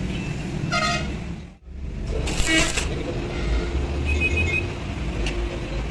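A steady low machine rumble, with a short squeak about a second in and a louder, harsher squeal about two and a half seconds in. The sound drops out for a split second between them.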